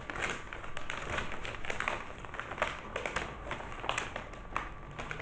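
Paper fast-food bag rustling and crinkling as its stapled top is pulled open, with many irregular small crackles and clicks.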